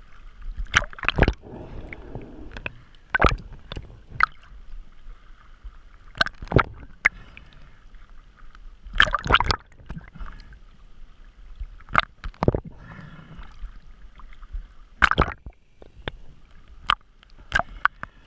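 Water sloshing and splashing against a waterproof action camera bobbing in and out of the surface, with irregular sharp knocks and splashes every second or two.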